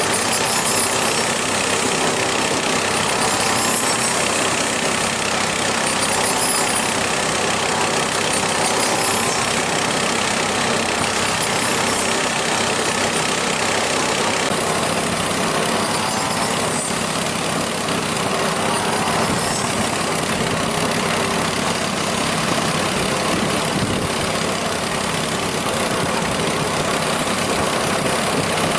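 A motor running steadily at a constant speed, with a dense, unchanging mechanical noise.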